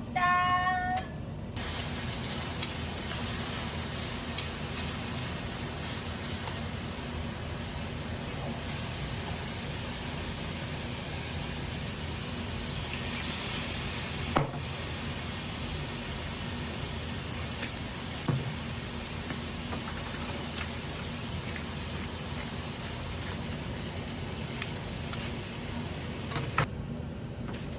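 Steady sizzling hiss of food frying in a pan, starting suddenly a second or so in and cutting off suddenly near the end. A brief high-pitched call sounds just before it.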